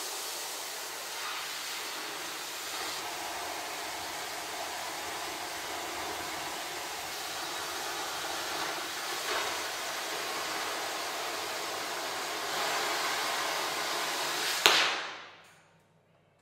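Oxy-fuel cutting torch on an automatic cutting machine hissing steadily as it cuts through steel plate. Near the end comes a sharp pop as the flame is shut off, and the hiss dies away within about a second.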